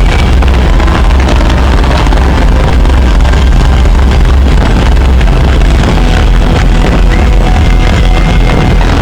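Loud music played over a stadium sound system, mixed with the cracks of fireworks going off, so loud that the recording sits near its limit throughout with heavy bass.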